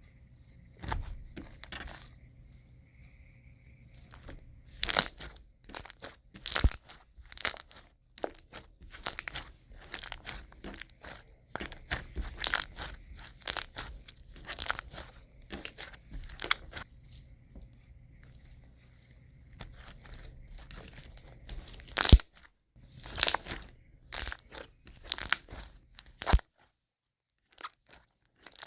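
Thick, glossy slime being squished and stretched by hand, making many irregular sticky clicks and pops.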